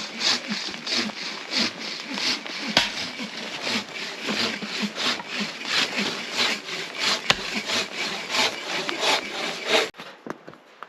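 Footsteps crunching in wet, sticky snow in a steady walking rhythm as people haul canoe sleds. About ten seconds in the sound drops off suddenly to fainter crunching steps.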